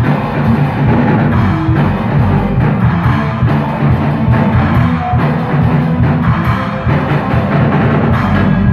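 A band playing live in a small rehearsal room: drum kit with electric guitars, loud and continuous.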